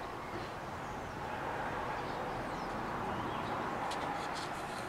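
Steady faint hiss with a few light clicks about four seconds in, from hands handling parts inside an automatic transmission case.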